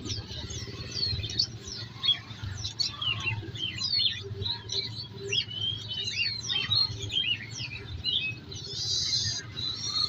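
Many caged songbirds chirping and twittering together, with quick rising and falling notes overlapping, a buzzy call near the end, and a low steady hum underneath.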